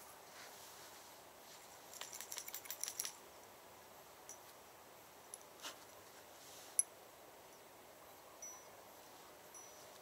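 Small bite-alarm bells on fishing lines jingling in a quick cluster about two seconds in as they are hung on, then a few single faint tinkles, over a quiet low hiss.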